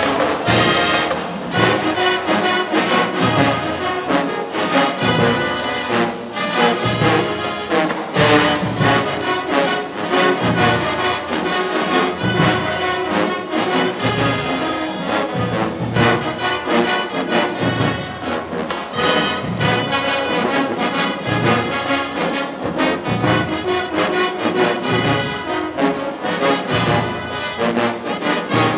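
Marching band playing a loud, continuous tune, led by a full brass section with trombones and trumpets over steady drum hits.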